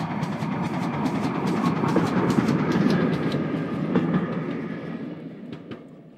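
GWR 14xx class 0-4-2 tank engine 1450 and its auto coach passing by under steam: a rumble with a run of sharp clicks from the wheels on the rails. It is loudest about halfway through, then fades away as the train draws off.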